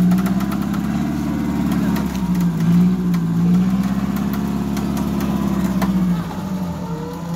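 Turbocharged Suzuki Jimny Jangkrik engine held at high revs under heavy load as the four-wheel-drive climbs out of a muddy rut, its pitch wavering up and down, then easing off about six seconds in.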